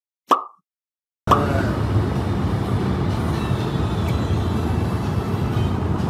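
A single short pop with a quickly falling tone, then a moment of dead silence. About a second in, a steady low rumble of distant city traffic starts and carries on.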